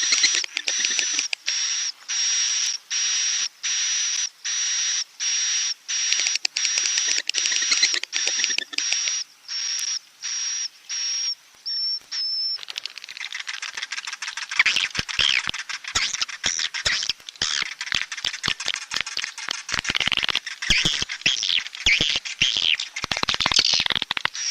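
Swiftlet roosting-call lure track: buzzy, high-pitched swiftlet chirps with a thin whistle on top, repeated in even pulses a little more than one a second. About halfway through it changes to a dense, irregular chattering of chirps and clicks. It is the night roosting call played to draw swiftlets in to roost in a swiftlet house.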